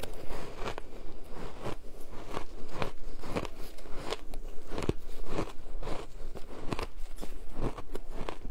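Chewing a mouthful of frozen shaved ice, close to the microphone: a steady run of crisp crunches, about three a second.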